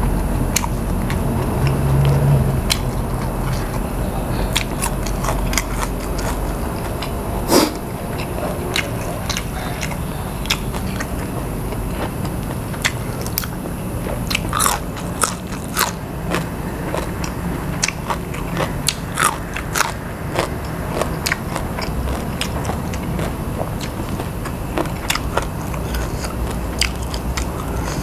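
A person chewing with the mouth open and crunching raw vegetables, raw yard-long beans among them: irregular sharp, crisp bites and crunches, thickest in the second half, over a steady low hum.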